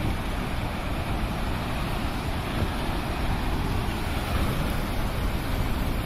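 Rough sea's heavy surf breaking and churning over a rocky shore: a steady, dense rush with a deep rumble, swelling slightly near the end as a wave crashes onto the rocks.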